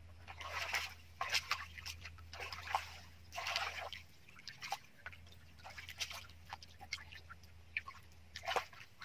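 Hands sloshing and splashing in shallow muddy water while grabbing for fish, in irregular bursts that are heaviest in the first four seconds, then lighter splashes and drips. A steady low hum lies underneath.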